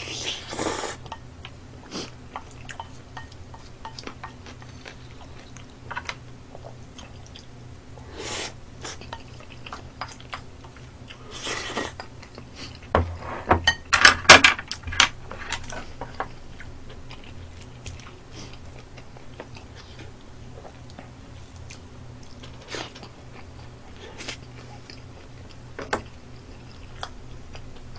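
Close-miked eating: chewing of spicy stir-fried intestines, with scattered clicks of chopsticks against bowls and a cluster of louder clatter of tableware about halfway through.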